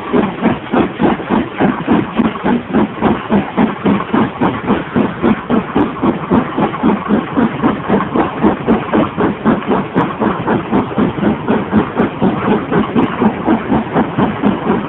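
LMS Stanier 8F two-cylinder 2-8-0 steam locomotive's exhaust beats, an even chuffing at about four beats a second, as it hauls its train up a steep 1 in 45 gradient. Heard from a carriage window down the train.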